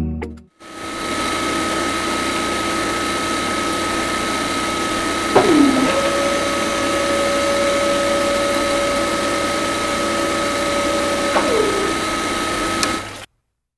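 Small DC motor of a toy borewell drilling rig running steadily with a constant high whine as it spins the drill rod. A second, lower whine joins about five seconds in and drops away in pitch about a second and a half before the sound cuts off near the end.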